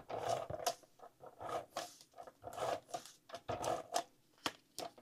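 ATG adhesive tape gun laying double-sided tape on a cardstock panel: a run of short zipping strokes, about five in a row, with a couple of sharp clicks near the end.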